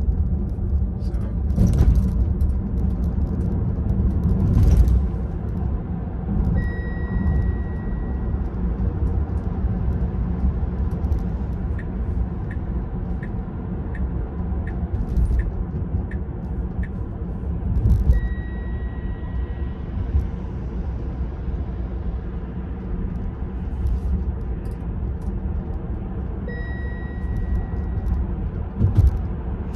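Steady road and tyre rumble inside the cabin of a Tesla Model 3 Performance driving along, with a few louder thuds from the road. A held electronic beep sounds three times, and a run of soft evenly spaced ticks comes in the middle.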